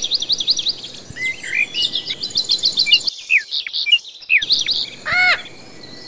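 Bird calls: quick runs of high chirps and whistles, with one louder, rising-then-falling call about five seconds in.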